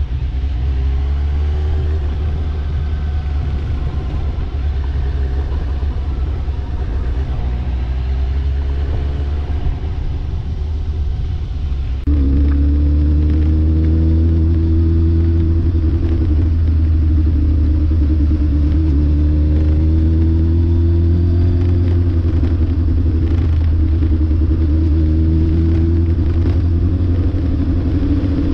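A road vehicle's engine running while driving, over a deep steady drone, its pitch rising and falling as the revs change. About twelve seconds in, the sound abruptly gets louder and stays so.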